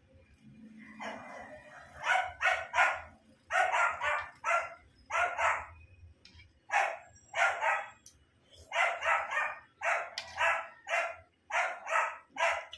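A dog barking repeatedly, about twenty sharp barks in quick runs of two to six, starting about two seconds in.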